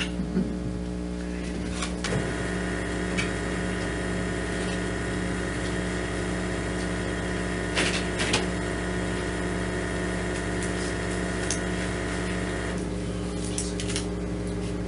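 Steady electrical hum and machine drone made of several fixed tones. More tones join about two seconds in and drop away a couple of seconds before the end. A few faint clicks and knocks fall around two and eight seconds in.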